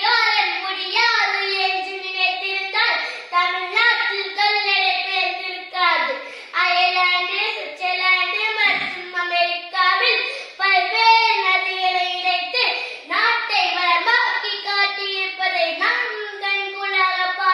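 A young boy's voice singing solo in a high, held, sing-song line, unaccompanied.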